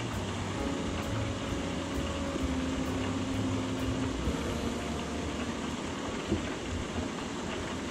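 Steady sizzling of squid frying in oil in a closed electric deep fryer, under a low hum. A single light clink about six seconds in.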